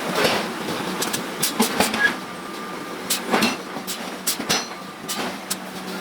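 Metal knocks and clanks from forging large iron blocks: about ten irregular strikes, some ringing briefly, over a steady machine hum.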